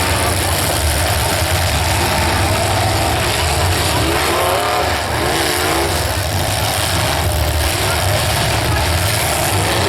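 Demolition derby cars' engines running and revving.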